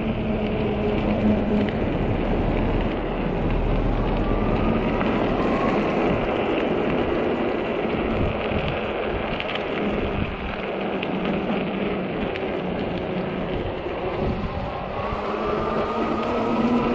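Wind buffeting the microphone over the rolling of a 48V fat-tyre e-bike on pavement: a steady rushing noise with a deep rumble. A faint rising whine comes in about four seconds in and again near the end.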